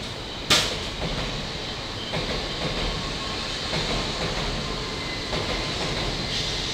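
N700S Shinkansen trainset running past at low speed: a steady rolling noise with a few faint wheel clicks. A single sharp crack about half a second in is the loudest sound.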